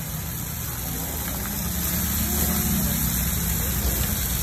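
Steady roar of a commercial gas wok burner under a steaming wok of chilli chicken gravy, growing a little louder about two seconds in.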